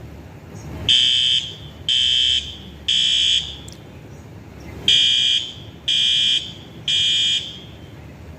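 Building fire alarm sounding in the three-beep temporal pattern. It gives three high-pitched half-second beeps about a second apart, a pause, then three more. This is the standard evacuation signal.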